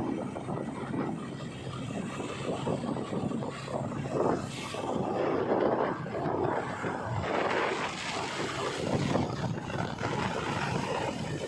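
Diesel engine of a JCB 3DX backhoe loader working, a rough steady rumble that swells louder about four seconds in and again about seven seconds in.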